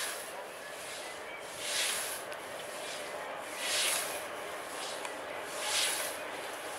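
A scythe cutting through tall grass: a swish with each stroke, about every two seconds.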